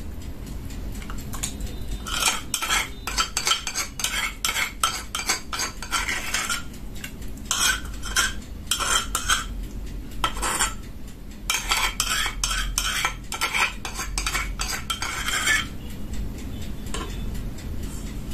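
Metal spoon stirring in a metal pot of milk, clinking and scraping against the sides in quick runs with short pauses, as yogurt starter is mixed into the warm milk.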